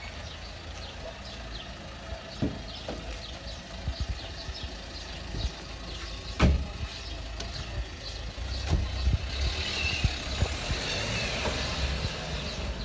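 Dacia Sandero Stepway car engine running at idle, a steady low rumble, with scattered knocks and one loud thump about six and a half seconds in.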